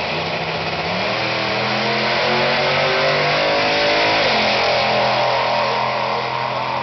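Two drag cars at full throttle off the line: a 1970 pro-street Chevy Nova's 468 all-iron big-block V8 and a 5th-gen Camaro. The engine pitch climbs, falls back at a gear change about four seconds in, then holds.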